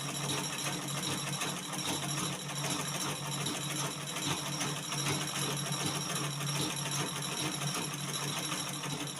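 Black-head Butterfly treadle sewing machine running steadily, stitching with the stitch control set for a short, close stitch length.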